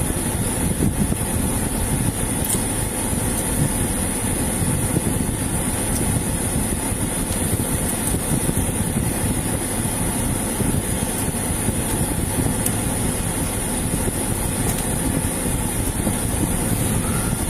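Steady low rumble of an idling vehicle engine, with a constant faint high-pitched whine above it.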